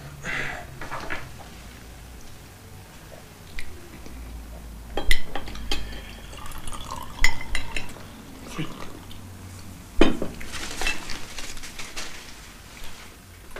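Metal cutlery clinking and scraping against china plates, with sharp scattered clinks spread through and several louder ones in the middle and near the end.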